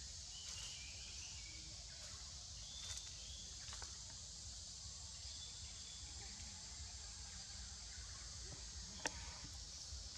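Faint, steady high drone of insects in the forest, with a few short faint chirps in the first few seconds and a single sharp click about nine seconds in.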